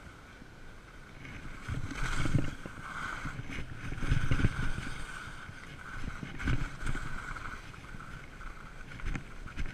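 Skis sliding and carving on packed snow, mixed with wind buffeting the camera's microphone in low rumbling gusts that swell about two and four seconds in.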